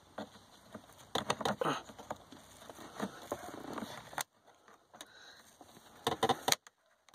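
Plastic bone tool prying and scraping at the small plastic caps on a Volvo 240's lower dash panel: irregular small clicks and rustling, with bursts of sharper plastic clicks about a second in and again about six seconds in.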